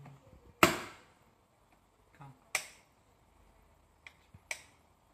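Manual nameplate marking machine clacking as its character wheel and stamping handle are worked: three sharp metallic strikes about two seconds apart, the first the loudest and ringing briefly, with two lighter clicks just before the last.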